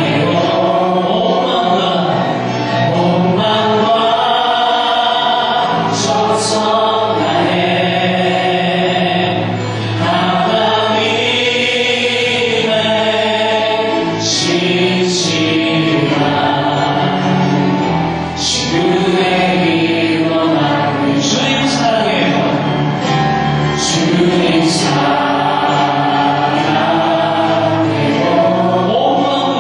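A church praise team of men and women singing a Korean gospel song together into microphones.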